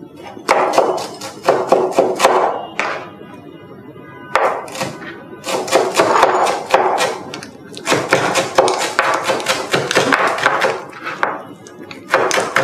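Kitchen knife finely chopping fresh coriander on a cutting board: quick runs of knife strokes, about four or five a second, broken by short pauses.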